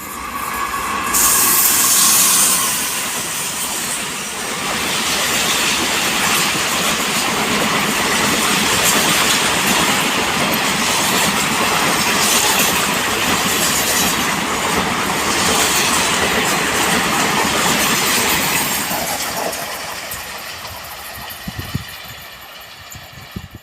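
A train passing at speed on Indian Railways track, wheels clattering over the rails with a loud rushing noise. It rises sharply about a second in, holds for most of the stretch and fades away near the end.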